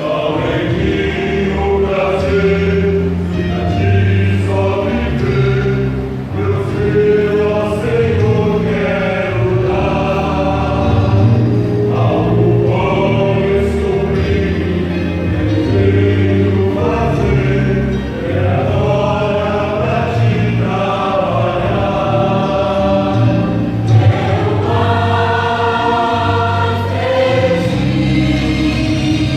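A mixed church choir singing a Christian hymn in harmony over an instrumental accompaniment.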